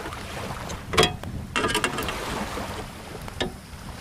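Hand tools and hardware knocking and clicking while a bracket is fastened with small machine screws and lock nuts: a loud knock about a second in, a quick run of clicks soon after, and another knock near the end.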